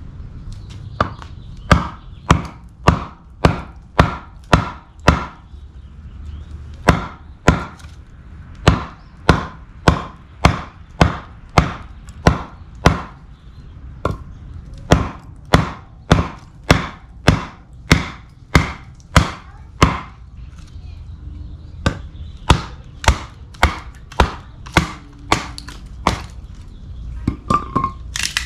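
Repeated sharp blows of a large camp knife splitting a log, about two strikes a second in runs of several, with brief pauses between runs.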